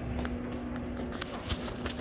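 Footsteps on a hard floor, about two a second, over a steady low hum.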